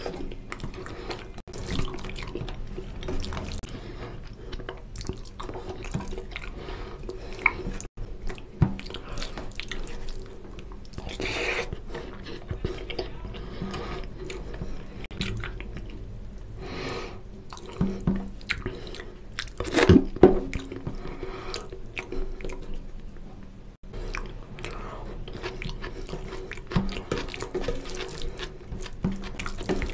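Wet, squishy sounds of eating curry and rice by hand: fingers kneading oily mutton curry gravy into rice, then chewing and lip-smacking, as an irregular run of small wet clicks. There is a louder burst about two-thirds of the way through.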